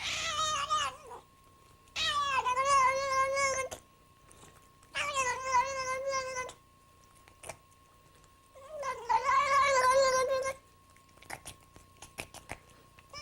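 A cat yowling: four long, drawn-out calls with a wavering pitch, coming about every three seconds, with a faint steady whine running underneath and a few small clicks near the end.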